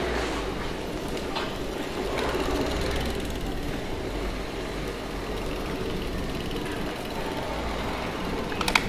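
City street traffic: motor vehicles running past with a steady low rumble, and a few sharp clicks near the end.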